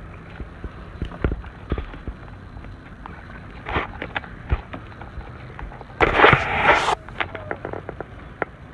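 Scattered sharp knocks and clicks, with a loud rush of noise lasting about a second, starting about six seconds in.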